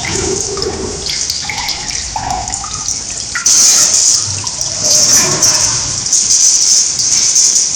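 AI-generated (TangoFlux) sound effect of water drops in a cavern: scattered drips over a steady hiss that grows louder about three and a half seconds in.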